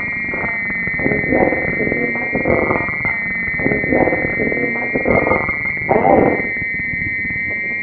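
Korg Monotron analogue ribbon synthesizers played through effects pedals: a steady high drone over a rough, noisy texture that swells in uneven pulses about once a second.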